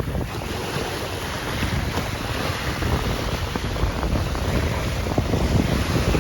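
Wind rumbling on the microphone over a steady rush of sea surf.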